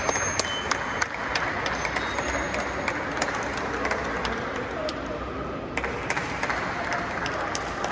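Audience applauding, with crowd chatter and scattered sharp claps.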